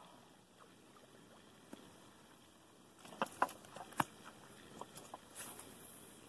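Faint, quiet outdoor background, then about three seconds in a short, irregular flurry of sharp clicks and knocks, three of them louder than the rest, followed by a few lighter taps and a brief rustle. This is handling noise from someone moving with fishing gear close to the microphone.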